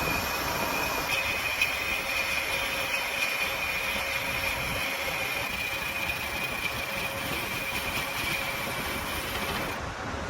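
Metal lathe running, a steady high-pitched whine over the machine noise, which stops near the end.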